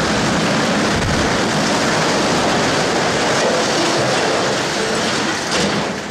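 Reinforced concrete silo crashing to the ground after explosive felling: a continuous loud rumble of breaking concrete and falling debris that begins to ease off near the end.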